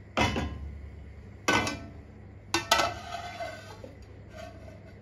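Sharp metal clanks against a clay pot, four in all with the loudest pair close together a little under three seconds in, each leaving a brief metallic ring, as an aluminium lid is handled and set down over the pot.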